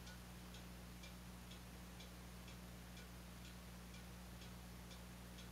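Faint, regular ticking, about two ticks a second, over a steady low hum.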